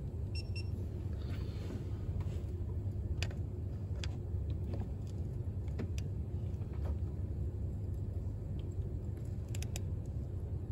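A steady low rumble with a few faint, sharp clicks and taps scattered through it, from a torque wrench and socket being handled on the timing belt tensioner bolt.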